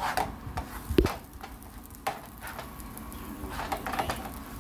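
Plastic spatula scraping and pushing scrambled eggs around a nonstick skillet, the eggs sizzling, with a sharp knock of the spatula against the pan about a second in.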